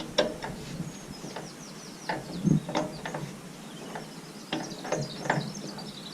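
Irregular sharp knocks and clicks from hand-tool work on the roller, about ten spread over a few seconds, with birds chirping high above them.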